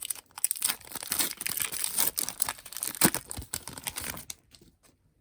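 Foil wrapper of a Pokémon trading card booster pack crinkling and tearing as it is opened by hand, a dense crackle that stops about four seconds in.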